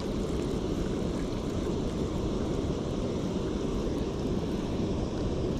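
Steady low rumble of water pouring over a concrete weir and churning below it.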